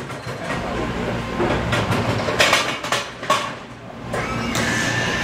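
Toyota electric walkie pallet jack running as it moves a loaded pallet: a steady low motor hum with scattered knocks and rattles, and a high whine that comes in near the end.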